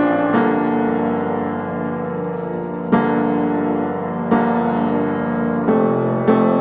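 Background piano music: slow, sustained chords, with a new chord struck about every one to one and a half seconds.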